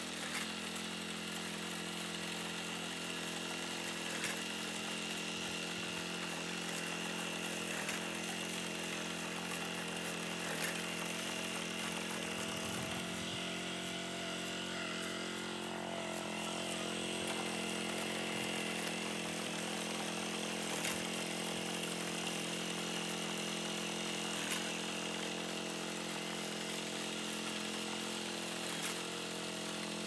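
Small engine of a walk-behind rice binder running steadily, with a sharp click every few seconds.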